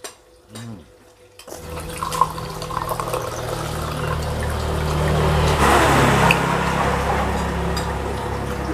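A drink poured from a plastic jug into a glass mug: a steady splashing pour that begins about a second and a half in, swells in the middle and eases near the end. Before it come a few faint clicks.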